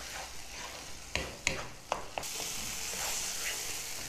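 Onion-tomato masala sizzling in a frying pan as it cooks down, stirred with a wooden spatula that scrapes and knocks against the pan a few times about a second in. The sizzle grows louder about halfway through.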